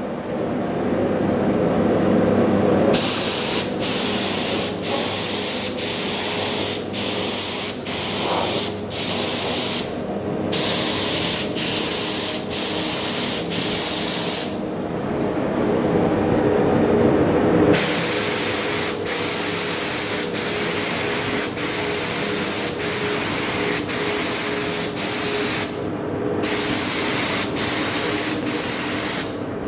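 Gravity-feed HVLP spray gun spraying polyester primer: a loud air hiss in long bursts as the trigger is held for each pass, with brief catches between strokes and longer pauses about ten, fifteen and twenty-six seconds in, over a steady hum.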